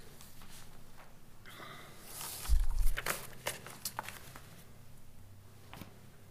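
Papers rustling and being handled at a podium microphone, with a heavy low thump about two and a half seconds in and a few light clicks after it.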